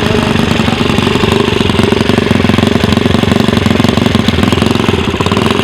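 A small engine running steadily at a fast idle, with a rapid, even rattling pulse.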